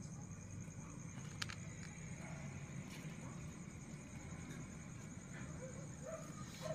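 A litter of young puppies shuffling about on dirt, giving a few short squeaky whimpers near the end. A steady high, pulsing insect trill and a low hum run underneath.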